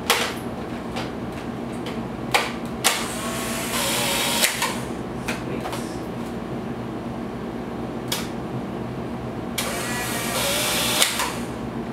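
Polaroid SX-70 instant camera run with an empty film pack to test it: sharp clicks as the pack goes in and the film door shuts, then the camera's ejection motor whirs for under two seconds. Near the end the motor whirs again for about a second and a half as the shutter is fired.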